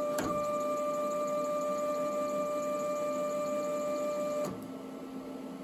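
Lathe power-feed motor running, driving the carriage with a steady whine. There is a click a moment in, and about four and a half seconds in the whine cuts off, leaving a faint hum.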